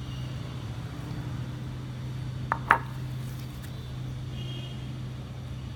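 Steady low background hum, with two sharp knocks close together about halfway through, of something small and hard striking a hard surface.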